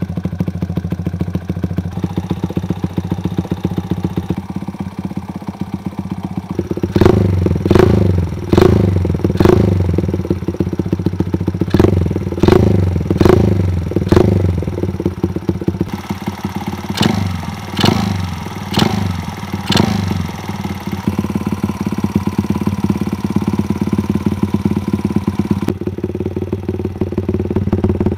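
Freshly restored Honda Gorilla's Takegawa 88cc four-stroke single, fed by a Mikuni VM26 carburettor and exhausting through an OVER aftermarket muffler, idling steadily. About seven seconds in it is blipped sharply about nine times, drops back to idle, and is blipped about six more times before settling into a steady idle again.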